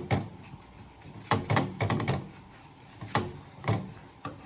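A spatula knocking and pressing a parotta on a hot tawa: seven or eight short, sharp taps at irregular intervals.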